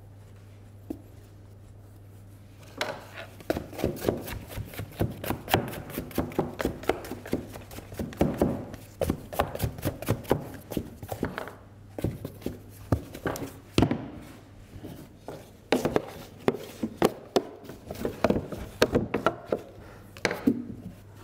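Hands working a rested bread dough loose inside a plastic dough tub and turning it out onto a wooden bench: a dense, irregular run of short knocks, taps and rubbing against the plastic and the dough, starting about three seconds in.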